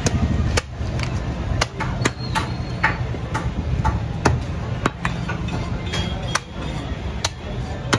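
Heavy cleaver chopping through a goat head on a wooden log chopping block: about a dozen sharp chops at uneven intervals, roughly one every half second. A steady low rumble runs underneath.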